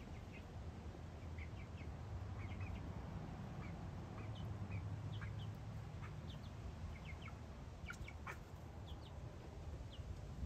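Backyard hens making short, soft clucks and chirps while they feed, scattered irregularly through the clip, over a steady low rumble.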